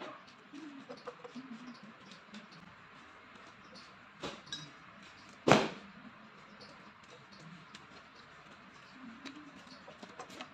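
Light clicks and scrapes of a screwdriver working on a mounting board, with a smaller knock about four seconds in and one sharp, loud knock about a second and a half later.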